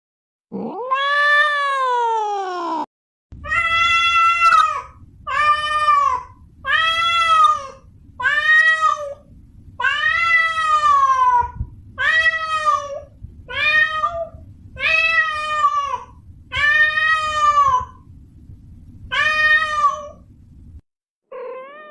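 Domestic cat meowing. First comes one long meow that rises and then falls in pitch. After a short break comes a series of about ten meows, roughly one every one and a half seconds, over a faint low hiss.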